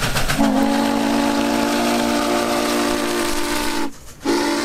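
Steam whistle of Norfolk and Western J-class 4-8-4 No. 611, blowing a long steady blast of several notes at once over a hiss of steam. It breaks off briefly near the end, then sounds again.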